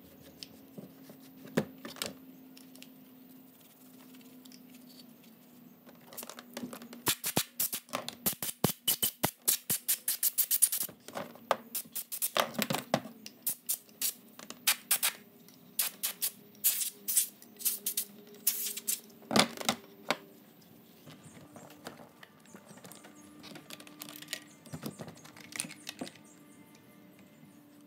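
Soft background music, over sharp clicks and short scrapes of a Stihl MS 170 chainsaw's parts and hand tools being handled on a wooden bench during cleaning and reassembly. The clicks come in quick runs, loudest between about seven and twenty seconds in.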